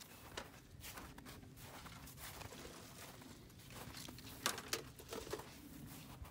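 Footsteps crunching on snowy ground, uneven and faint, with two sharper knocks about four and a half seconds in.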